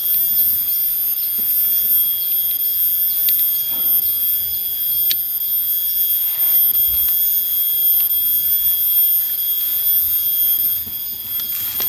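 Steady, shrill drone of insects, several high tones held together. A few sharp clicks of hand pruning shears snipping small branches cut through it, about three and five seconds in.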